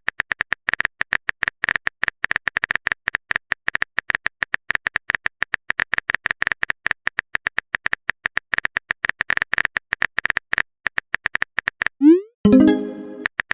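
Rapid phone keyboard typing clicks, a simulated on-screen keyboard sound effect. Near the end a short rising blip and chime sound as a message is sent.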